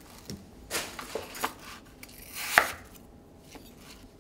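Kitchen knife dicing a peeled apple on a plastic cutting board: several irregular chops, the loudest about two and a half seconds in.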